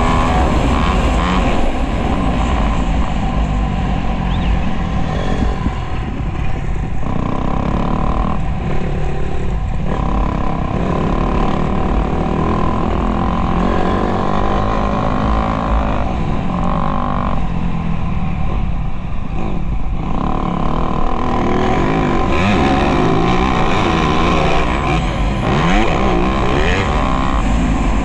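Motocross bike engine running hard, its note rising and falling as the throttle is opened and closed, with a steady wind rumble over the microphone of the onboard camera.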